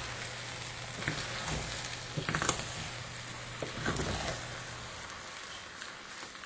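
A wooden spoon scooping and turning sticky red rice from the bottom of a stainless-steel pan, with soft scrapes and a few light knocks against the pan at about two and a half and four seconds in. Underneath is a faint sizzle from the rice cooking on low heat.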